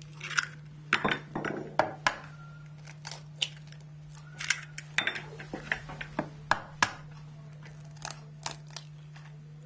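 Eggs being cracked by hand over a bowl: a string of irregular sharp taps and cracks of eggshell against the bowl's rim and shells breaking apart.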